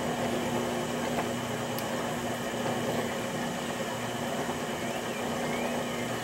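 Potter's wheel motor running with a steady, even hum under a constant hiss as a clay bottle form spins on the wheel.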